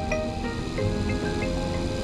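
Cheerful children's cartoon theme music, a tune of held notes over a bass line, playing after the episode title.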